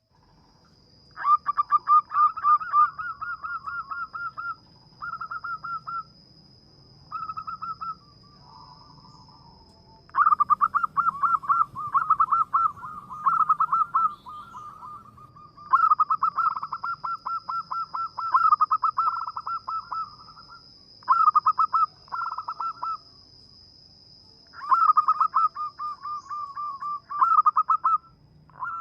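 Zebra dove (perkutut) cooing: a run of quick, rapidly pulsed phrases with short pauses between them, over a faint steady high whine.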